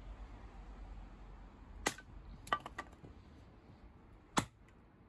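Steel axe head chopping into a wooden block: a sharp chop about two seconds in, a quick run of three lighter knocks, then another sharp chop near the end.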